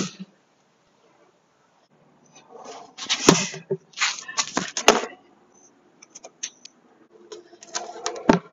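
A walking cane striking a plastic traffic cone: sharp knocks about three seconds in, near five seconds, and a louder one near the end as the cone is knocked over onto the pavement, with scuffing and scraping around each strike.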